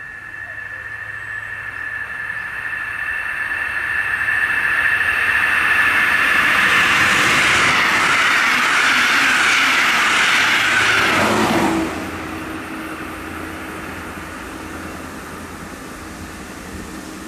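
Diesel-hauled push-pull regional express train with coaches passing at speed. A high steady ringing and a rush of wheels on rail build as it approaches and grow loud as the coaches go by. About twelve seconds in, the sound drops suddenly with a falling pitch and fades to a fainter, steady hum as the train moves away.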